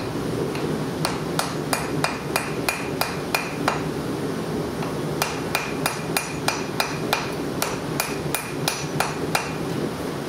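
Hand hammer striking red-hot steel cable on an anvil, about three to four blows a second, forge welding the cable's tip. The hammering pauses briefly midway and stops near the end. Under it runs the steady roar of the forced-air gas forge burner and its blower.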